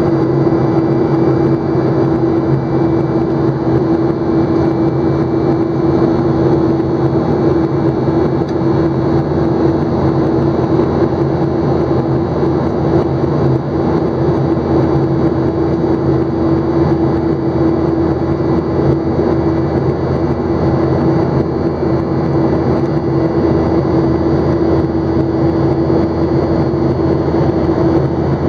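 Steady cabin noise inside a jet airliner in flight: an even rushing drone of engines and airflow with a constant low hum.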